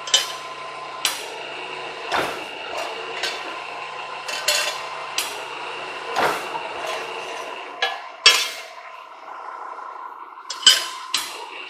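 Dreis & Krump model 335 mechanical press brake running with a steady hum, with a dozen sharp metallic clanks and clinks spread through it as sheet steel is fed into the dies, bent and pulled back out.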